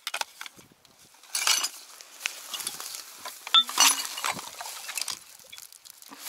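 Bottles and cans clinking as litter is picked up and dropped into a woven plastic sack, with the sack crinkling and rustling in louder bursts about one and a half and four seconds in.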